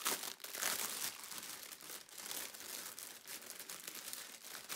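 Clear plastic bag of diamond-painting drill packets crinkling and rustling as hands work it open, loudest in the first second.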